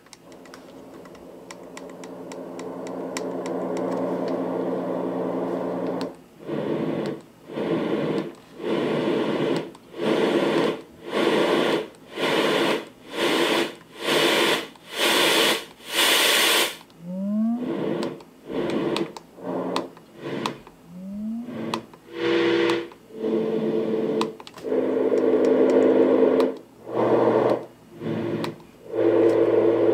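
LectroFan electronic white noise machine playing its fan and white noise sounds: a steady rushing noise with a faint hum that grows louder over the first few seconds as the volume is turned up. After that it is switched through its sound settings, the noise cutting out and coming back about once a second, with two short rising chirps near the middle.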